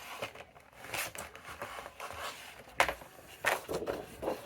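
Cardstock being handled, with a few short scraping, tearing sounds as the branding strip is torn off the sheet.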